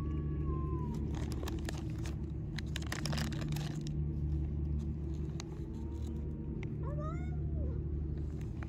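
Street cats meowing: one meow at the start, a longer one about six seconds in, then a quick run of short meows about seven seconds in, over a steady low rumble.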